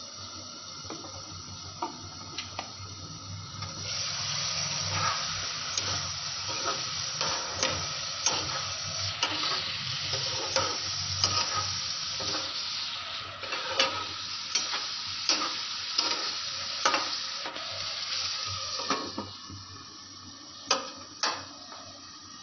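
Cubed potatoes sizzling as they fry in oil in a non-stick frying pan, stirred with a spoon that clicks against the pan about once a second. The sizzling comes up about four seconds in and drops away a few seconds before the end, leaving a couple of last clicks.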